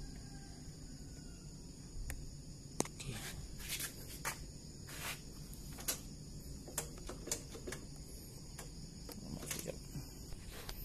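Handling noise: scattered light clicks and short rustles over a faint steady hum, as loose meter wires and connectors are handled.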